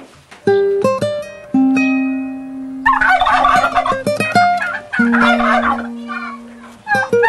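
Slow plucked-string music, single notes picked and left to ring, with two bouts of fowl calling over it, about three and five seconds in.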